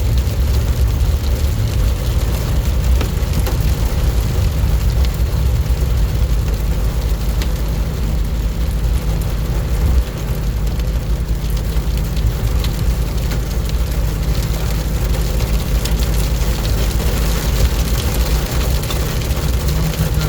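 Heavy rain pouring down: a dense patter of drops over a steady low rumble.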